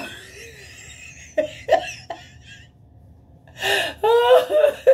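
A woman laughing: a sharp breath at the start, breathy laughs with short bursts over the first couple of seconds, then a louder run of laughter near the end.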